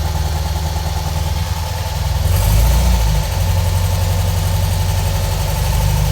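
VW Fusca (Beetle) 1300 air-cooled flat-four engine running just after a cold start, having nearly failed to catch after days parked. It gets briefly louder about two seconds in, then settles back to a steady run.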